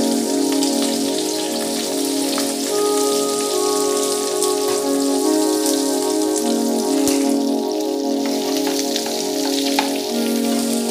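Hot oil in a steel pan sizzling and crackling steadily around a curry-leaf and chilli tempering as mashed potato goes in, over background instrumental music with long held notes.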